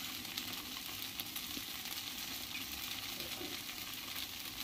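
Rava dosa sizzling in a little oil on a hot tawa, a steady crackling hiss.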